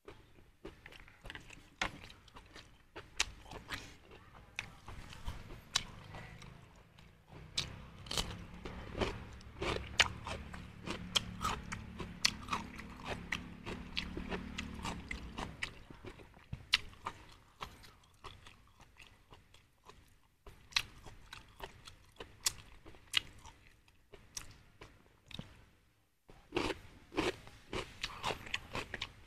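A person chewing and biting close to the microphone: mouthfuls of goat offal and raw cucumber, with many sharp, irregular crunches and clicks. A low hum runs underneath for several seconds in the middle.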